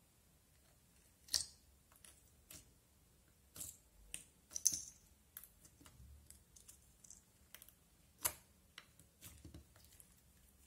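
Clear glitter slime being pressed and squeezed by hand, giving scattered sharp clicks and small pops. The three loudest come about a second in, near the middle, and about eight seconds in.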